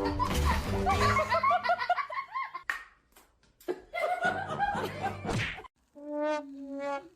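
Laughter in quick short bursts, mixed with music, then a couple of steady held tones near the end.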